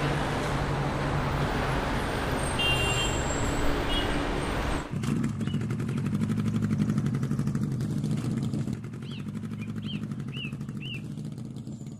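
Street traffic noise for about the first five seconds, then a sudden change to a motorcycle engine running with a steady, low, fast pulse. A few short bird chirps come near the end.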